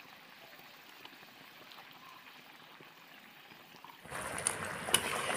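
A faint hiss for the first four seconds, then egg curry gravy simmering and bubbling in a kadai, with a couple of light clicks.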